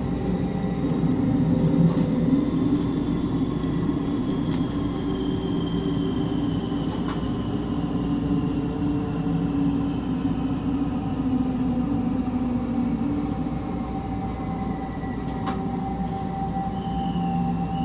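Electric stopping train running on the track, heard from inside the driver's cab: a steady rumble of wheels on rail with a whine that slowly falls in pitch. A few sharp clicks come through, and a brief higher tone sounds near the end.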